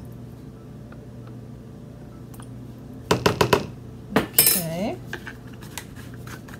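Metal measuring spoon clinking and clattering against a plastic measuring jug and wire whisk: a quick run of clicks about three seconds in, a louder clatter with a brief ringing glide just after four seconds, then a few light taps as the plastic bottle is handled.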